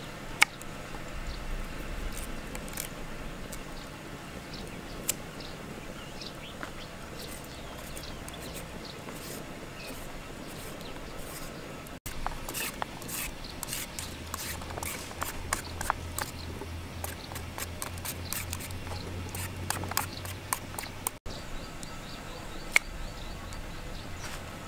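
Knife working a raw carrot: cutting it on a wooden block and shaving thin strips off it, heard as scattered sharp clicks and scrapes. A low hum runs under it for several seconds in the middle.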